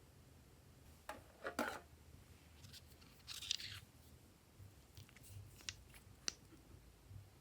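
Quiet handling sounds: a few sharp clicks and snips, with a short crinkling rustle about three seconds in.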